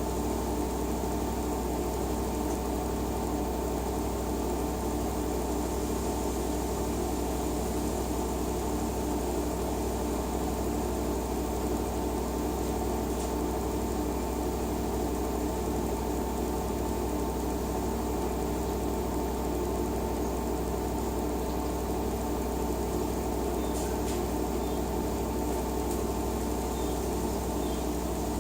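LG WT-R852 direct-drive washing machine running steadily with a constant motor hum and a faint, even pulse about once a second.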